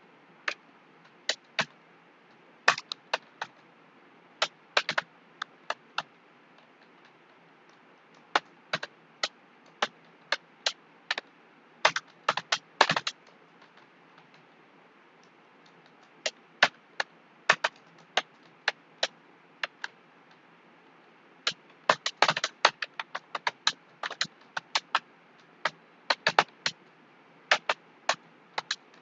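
Computer keyboard keys being typed on in uneven, fairly slow clicks, about one to three a second. There are short pauses of a couple of seconds, and a quicker run of keystrokes a little past the middle.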